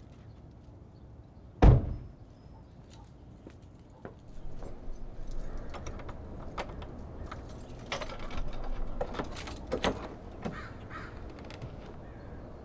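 A car door slams shut with a single heavy thump about two seconds in, the loudest sound. Then a run of small clicks and rustles: keys jangling and a key working the deadbolt of a wooden front door before it swings open.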